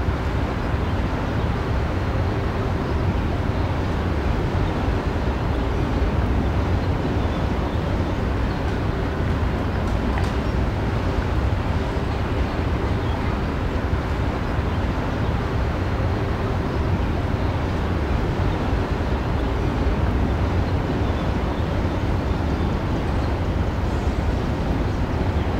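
Steady outdoor background noise: an even low rumble and hiss, with no distinct bursts.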